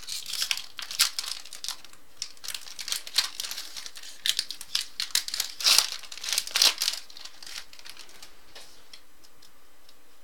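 Trading card pack wrapper being torn open and crinkled by hand, a dense run of crackling and tearing that dies down about three-quarters of the way through.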